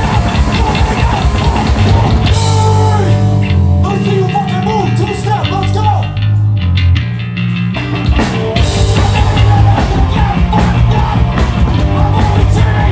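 Hardcore punk band playing live, loud and distorted. About two seconds in the cymbals and high end drop away into a sparser passage of held low notes with bending higher notes, and the full band comes back in about eight seconds in.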